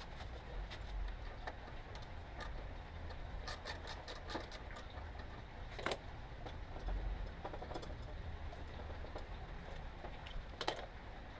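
Scattered small metallic clicks and clinks of hand tools working on an exhaust silencer, over a low rumble, with two sharper knocks about six seconds in and near the end.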